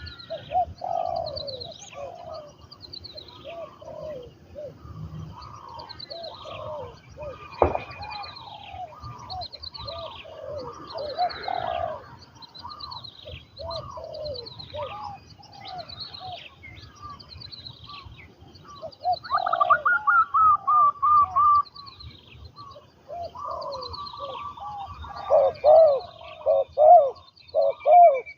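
Spotted doves cooing over and over, a trained decoy dove calling in a ground-trapping setup. Over them a small bird gives a steady run of short falling chirps, with a sharp click about eight seconds in.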